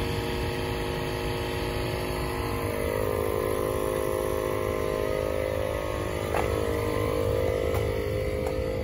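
A steady machine hum: several held tones over a low rumble, with a faint clank about six seconds in.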